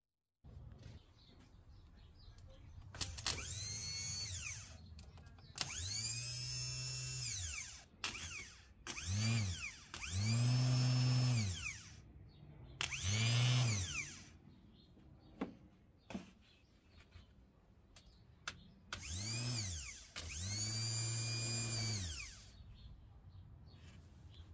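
12 V motorbike/quad bike DC starter motor run straight off a battery lead, with no load: about seven short runs. Each spins up with a rising whine, runs for a second or two, and winds down when the power is taken off. A few sharp clicks fall between the runs.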